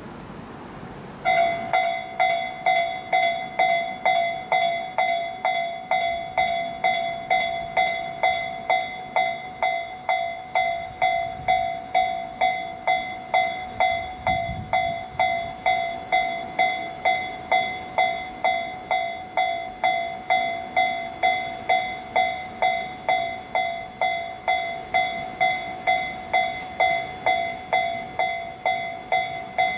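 Japanese railway level-crossing alarm ringing. An electronic bell starts about a second in and dings evenly, about one and a half strokes a second.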